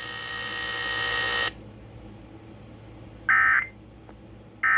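Emergency Alert System end-of-message tones on an AM radio broadcast: a steady buzzing tone for about a second and a half, then two short digital data bursts about a second and a half apart, marking the end of the severe thunderstorm warning.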